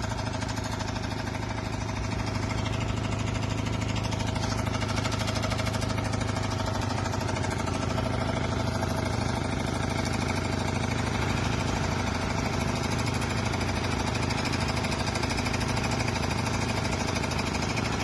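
An engine running steadily at an even speed, with a constant low hum.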